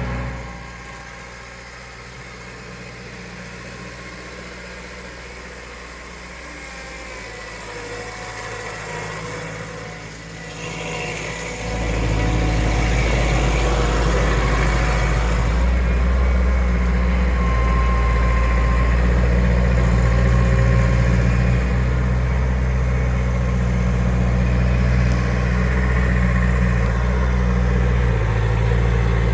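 Skid steer loader's engine idling, then about twelve seconds in it is throttled up and runs steadily, much louder, for the rest of the time.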